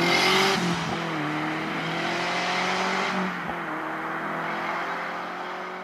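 Turbocharged Peugeot 205 GTI 16V accelerating hard away, engine note climbing in pitch through the gears with upshifts about a second and three and a half seconds in, fading with distance. A short hiss at the very start.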